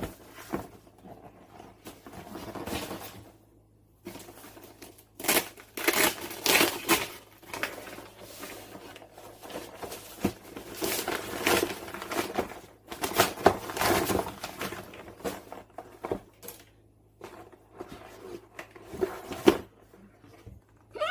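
Packaging handled in irregular bursts: plastic and cardboard rustling and crinkling, with occasional light knocks as items are taken out of a gift box.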